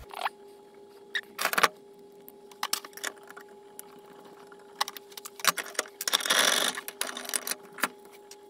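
Small metal parts, a bolt and its washers, clicking and clinking as they are handled on the bench, with a short scraping rustle about six seconds in, over a faint steady hum.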